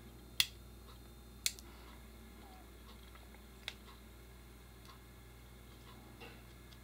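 Two sharp metal clicks about a second apart, then a fainter third one, from a 1911 pistol's hammer and sear mechanism as the hammer is cocked and the trigger is tested on the bare frame.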